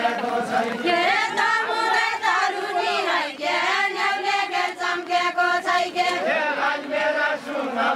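A group of women singing a Deuda folk song together, a long chant-like sung line that dips in pitch about three seconds in and then holds steady.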